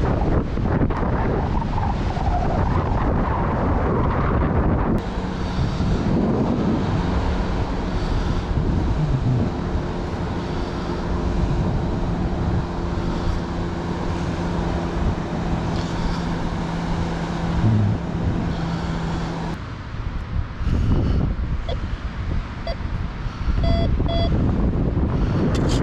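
Wind buffeting the microphone throughout, with a steady low hum through the middle stretch. About 23 seconds in, a handheld metal detector sweeping over sand gives a few short electronic beeps as it picks up a target.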